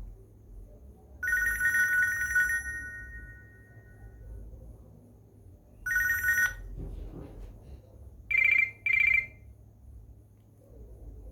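Nokia N95 ringtone playing from the phone: a trilling two-tone electronic ring, sounding for about a second, then once more briefly, followed by two short higher beeps.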